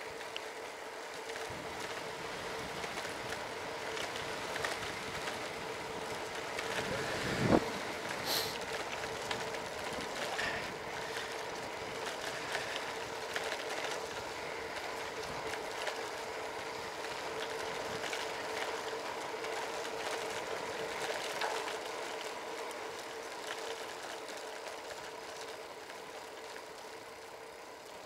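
Steady vehicle running noise while moving, with a steady hum and a single short knock about seven and a half seconds in.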